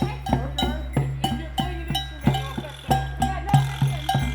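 A group playing drums and other percussion together in a steady beat, about three strikes a second, with a ringing metallic clank riding on the drum hits.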